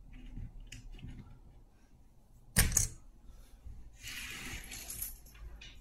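Plastic Cobi building bricks being handled: a few faint ticks, a sharp double clack about two and a half seconds in, then about a second of rustling as loose pieces are searched through.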